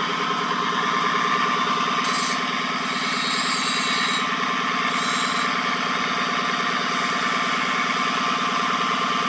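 Drivetrain noise of a 2014 Dodge Charger Pursuit 5.7 L HEMI coming up through the driveshaft tunnel into the cabin while driving at speed: a steady whine over engine and road noise. The owner took it for a failing driveshaft carrier (hanger) bearing and later suspected a notchy U-joint.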